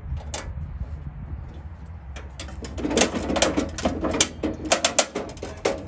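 A 1/4-inch stainless steel button-head bolt clicking and rattling against the metal RV step bracket as it is wiggled by hand into the drilled rivet holes. The clicks start about two seconds in and come in quick, irregular runs over a steady low hum.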